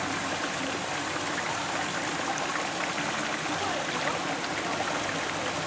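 Steady rush of running water from a stream, with no breaks.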